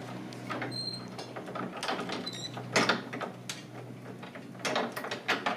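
Old hand-operated washing machine being worked slowly, its gears and mechanism clicking and knocking irregularly.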